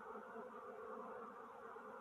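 Faint, steady buzzing of Melipona stingless bees (uruçu amarela and mandaçaia) around an open syrup feeder.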